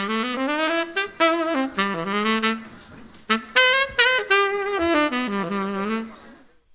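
Tenor saxophone playing short melodic phrases alone for a sound check, with vibrato on held notes and a few downward bends. It pauses briefly about halfway and stops shortly before the end.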